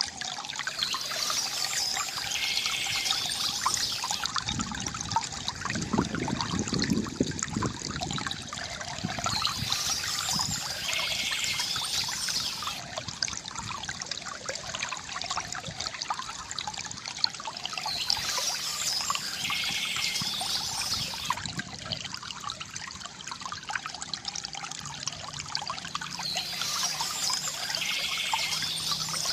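Stream water flowing and trickling steadily, with a bird singing short phrases that come back about every eight or nine seconds, four times.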